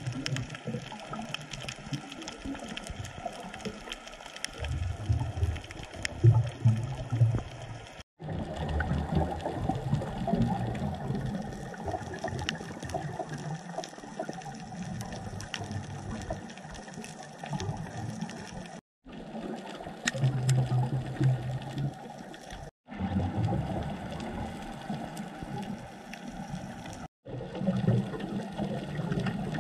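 Underwater sound picked up by a diver's camera: a scuba regulator's exhaled bubbles come in low bubbling bursts over a steady fine crackle of clicks. The sound drops out abruptly four times, for a moment each.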